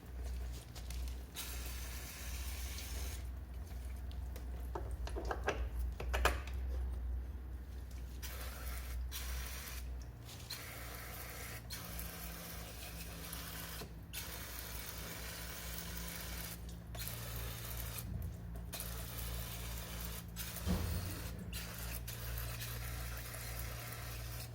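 Scooter transmission parts being washed with a cleaning product: liquid and spraying sounds over a steady low hum.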